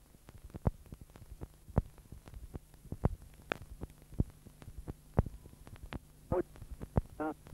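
Low steady hum with scattered, irregular sharp clicks. Near the end there are two brief snatches of a voice.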